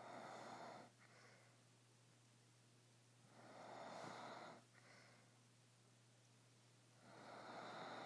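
A sleeping man snoring faintly: three slow, rasping breaths about three and a half seconds apart, each lasting about a second and followed by a short, softer breath.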